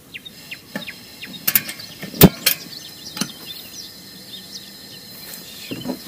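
Songbirds singing, nightingales among them: short chirps, whistles and trills. A loud sharp click comes about two seconds in, with a few lighter clicks around it.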